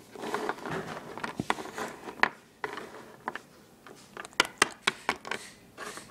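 Small plastic Littlest Pet Shop figurines being handled and tapped on a shelf: scattered light clicks and knocks over soft rustling, with the clicks coming quicker in the second half.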